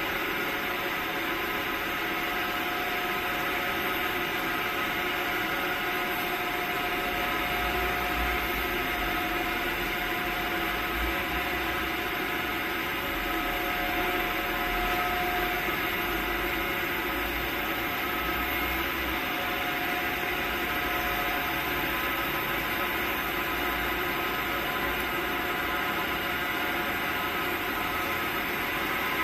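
Steady hum of running factory machinery: several steady tones over a hiss. A low rumble joins about seven seconds in.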